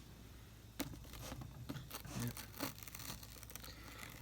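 Faint handling noise: a scattering of light clicks and taps with some rustling.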